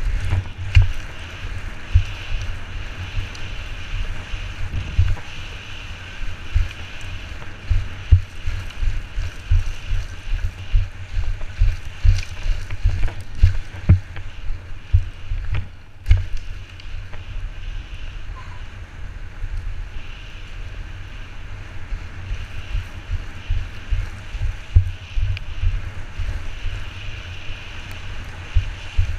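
Mountainboard rolling fast down a dirt and gravel trail: a continuous rumble of wheels on the ground with constant irregular knocks and thumps from bumps, mixed with wind buffeting the helmet-mounted microphone.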